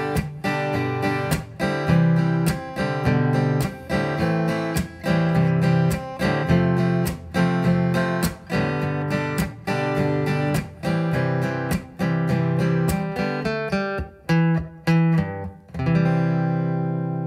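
Steel-string acoustic guitar strummed in a steady rhythm through a chord progression. Near the end it changes to a few separately picked notes and finishes on a full chord left to ring out and fade.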